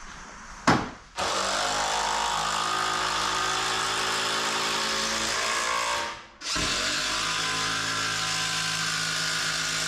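Power drill running steadily under load in two long runs of about five seconds each, with a short pause between them, as it drives a fastener into the mezzanine framing. A single sharp knock comes just before the first run.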